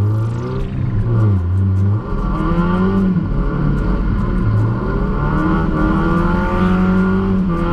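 Mazda MX-5's 1.8-litre four-cylinder engine rising and falling in revs as the car is drifted, heard from inside the cabin, with music playing underneath.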